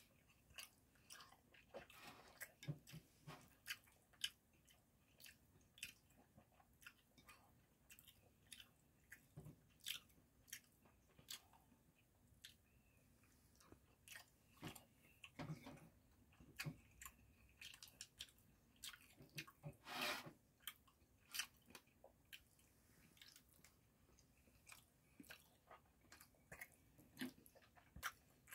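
Close-up chewing of soft smoked salmon slices: an irregular run of short, wet mouth clicks, with a few louder bursts, the loudest about twenty seconds in.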